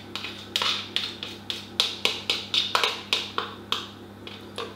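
A spoon tapping and scraping against a plastic tub in quick, irregular light knocks, about three or four a second, as the tub is emptied into a stainless steel mixing bowl.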